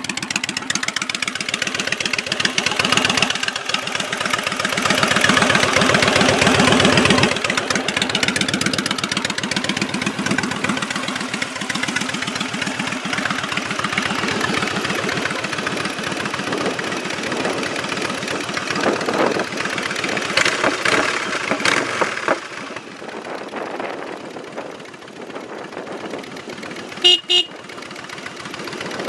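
Yamaha V-Star 1100's air-cooled V-twin running through its exhaust pipes, with a louder stretch of revs about four to seven seconds in before settling. Near the end the bike's horn gives two short honks.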